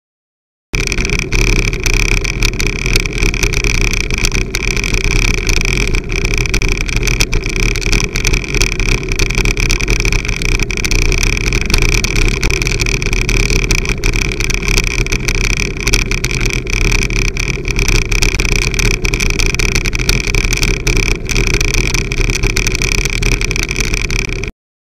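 Steady wind and road noise picked up by a bicycle-mounted camera riding a wet road in the rain, with many small clicks and taps through it. It starts abruptly under a second in and cuts off suddenly near the end.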